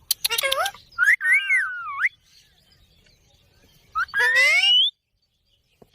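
Ringneck parrot making three whistled calls: a quick chattering call ending in a falling note, a wavering whistle, and about four seconds in a rising whistle.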